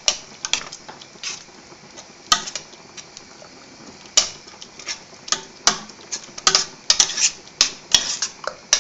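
Metal spoon stirring a thick tuna mornay sauce in a stainless steel saucepan, clinking and scraping against the sides of the pot in irregular strokes, about two a second.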